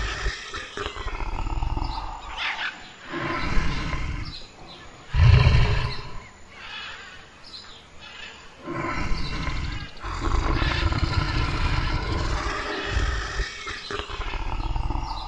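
Brown bears growling and roaring at each other as they wrestle, in rough bouts with short lulls; the loudest, deepest roar comes about five seconds in.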